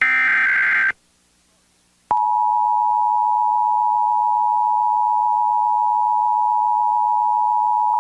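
Emergency Alert System test alert: a one-second SAME header data burst ends about a second in. After a second of silence, the two-tone EAS attention signal starts about two seconds in and holds steady.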